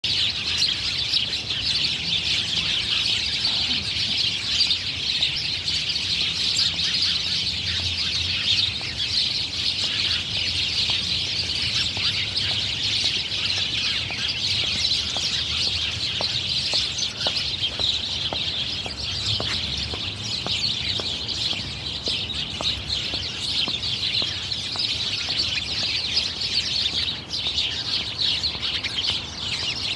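Birds singing and chirping all at once: many overlapping calls making a dense, continuous chatter.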